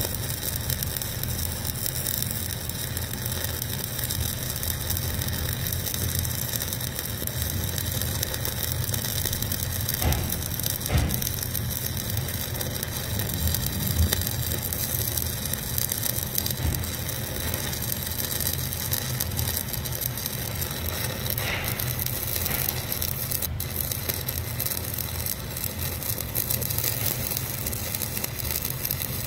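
Stick-welding arc from a 1/8-inch Lincoln Excalibur 7018 electrode running an overhead fillet weld on a stiffener plate. It burns steadily as a continuous crackling hiss, over a steady low hum.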